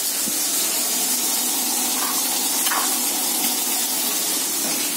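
Sliced onions and bay leaves frying in hot oil in a kadhai, a steady sizzling hiss.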